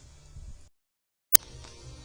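Faint background hiss that drops out into dead silence for about half a second, then a single sharp click where the next recording is spliced in.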